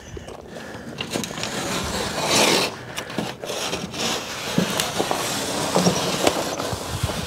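Utility knife blade cutting through the back paper of a snapped drywall sheet: an uneven scraping with small clicks and crackles, loudest in a stretch about two seconds in.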